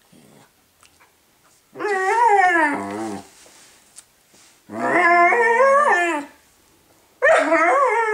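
Rough collie puppy moaning: three drawn-out, howl-like calls, each over a second long, their pitch wavering up and down, the third starting near the end.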